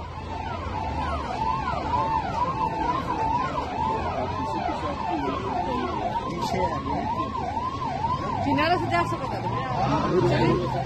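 Motorcade escort sirens wailing in quick rising-and-falling sweeps, about two a second, with more than one siren overlapping, over the low running of the convoy's vehicle engines.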